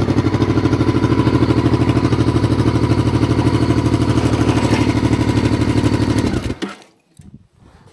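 Honda XRV750 Africa Twin's V-twin engine running steadily with an even, pulsing beat. It cuts off about six and a half seconds in, leaving a few faint clicks.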